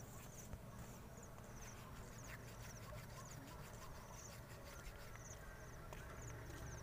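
Faint night ambience: crickets chirping in short, rapidly pulsed bursts that repeat every second or so, over a steady low hum.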